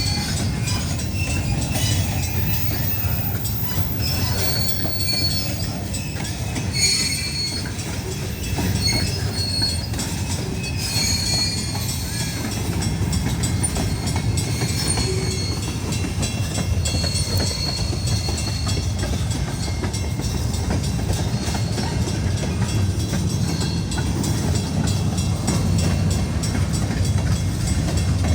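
Train cars rolling past with a steady low rumble, while the wheels squeal in short, high tones that come and go.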